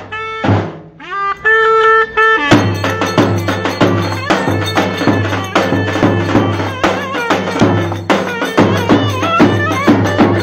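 Turkish folk dance music played by a band: a melody line with bending notes, joined about two and a half seconds in by a steady, driving drum beat.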